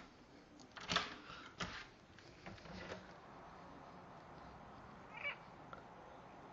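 A few sharp clunks and knocks of a door being opened a crack. About five seconds in comes a short meow from a domestic cat.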